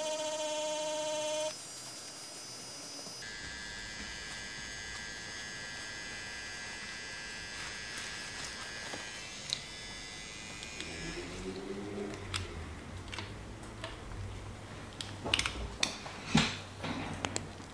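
DragonHawk Mast Archer wireless rotary tattoo machine buzzing steadily, cutting off about a second and a half in. A fainter high-pitched whine follows, then scattered light taps and clicks of handling near the end.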